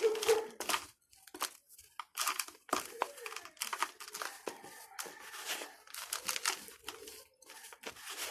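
Dry red dirt balls being crushed and crumbling, giving a string of irregular crisp, crunchy crackles.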